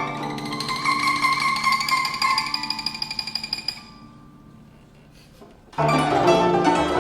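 Guzheng quartet playing rapid repeated notes on high pitches that fade away about four seconds in. After a brief hush, all the instruments come back in loudly with a dense cluster of plucked notes near the end.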